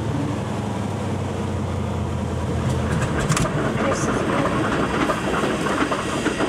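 Floatplane's piston engine running steadily, heard from inside the cabin. About two and a half seconds in, the steady engine tone gives way to a rougher clattering noise with scattered knocks.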